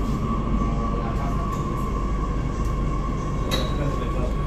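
Madrid Metro Serie 8000 electric train running, heard from inside the car: a steady low rumble with a constant high whine, and a short click about three and a half seconds in.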